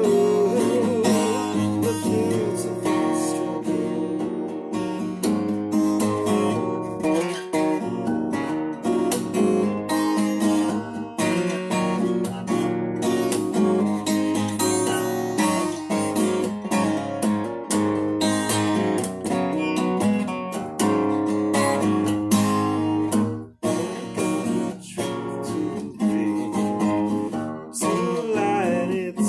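Acoustic guitar strummed steadily in chords, with a man singing over it at the start and again near the end. The playing stops for a moment about two-thirds of the way through, then picks up again.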